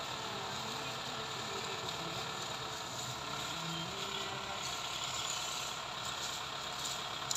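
Tractor diesel engine running steadily while working a hydraulic sugarcane grab loader.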